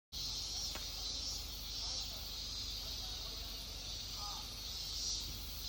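Quiet outdoor background: a steady high hiss that swells slightly, with a faint click about two-thirds of a second in and a short chirp about four seconds in.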